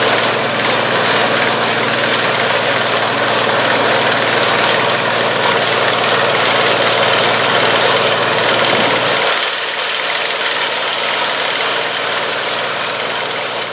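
A John Deere 55 EB combine running steadily, its engine and machinery making a dense mechanical noise. About nine seconds in, the deep part of the sound drops away and the whole gets a little quieter, then fades near the end.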